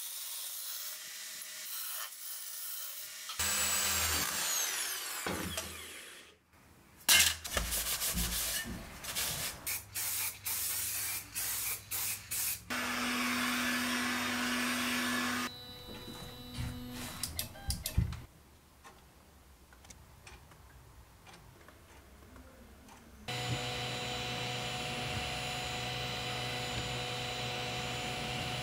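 A run of short workshop sounds: steel rubbed by hand against a belt grinder's platen, a spray gun hissing in spurts and then steadily for a few seconds, and, from about five seconds before the end, the steady hum of an Ortur desktop laser engraver's fan and motors.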